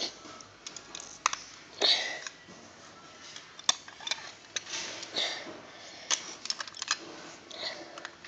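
Plastic Lego bricks being handled and pressed onto a baseplate: irregular clicks and taps scattered through, with a few short rustles.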